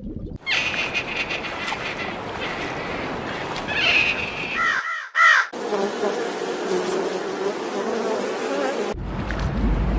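Insects buzzing, in several short clips cut together, with a quick run of chirping calls about five seconds in.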